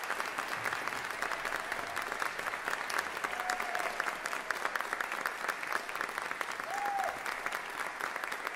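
Concert audience applauding steadily in a hall.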